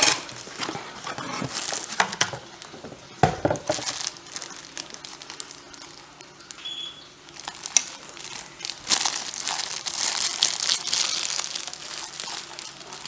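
Packaging crinkling and rustling as a bowl is handled and unwrapped, with irregular small clicks and one sharper knock about three seconds in.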